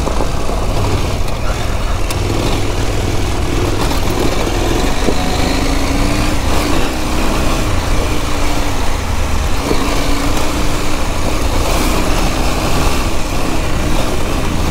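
KTM adventure motorcycle's engine running as it is ridden slowly over a gravel track, its note rising and falling with the throttle, under heavy wind rumble on the helmet microphone.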